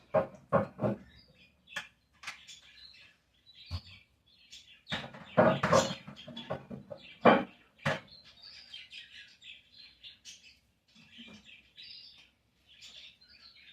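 Small birds chirping and twittering throughout, with a string of knocks and clatters in the first eight seconds, loudest around six to eight seconds in.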